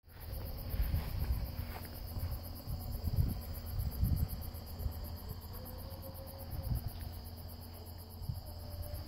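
Insects chirping steadily in the grass, a continuous high buzz with a higher, rapid even pulsing above it, over a low, uneven rumble on the microphone.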